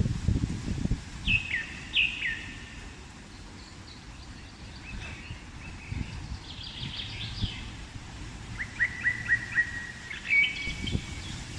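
Birds calling and chirping: two quick falling chirps early on, varied calls in the middle and a fast run of short notes near the end. Underneath is a low, gusty rumble of wind buffeting the microphone.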